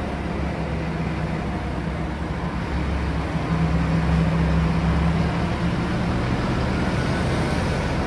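Tractor engine running steadily as the tractor drives over a silage clamp, rolling and compacting the chopped grass; the engine gets louder for a couple of seconds around the middle of the pass.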